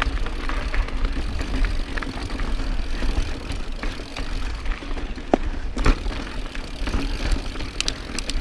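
Mountain bike riding fast over a rocky trail: a steady low rumble with scattered sharp knocks and rattles from the bike, the loudest a little past halfway and a quick cluster near the end.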